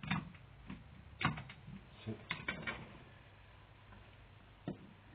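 Small metal clicks and knocks of a Triumph Stag carburettor being taken apart on a workbench: a sharp tap right at the start, another about a second in, a cluster of taps around two to three seconds, and one more near the end.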